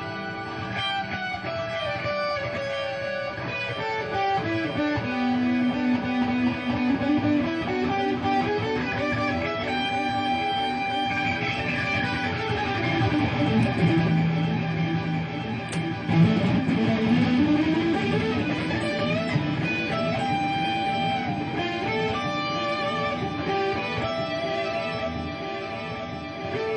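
Electric guitar improvising through a Meallsound MP80D digital delay pedal: runs of single notes stepping down and then back up, with held notes overlapping the echoes of earlier ones.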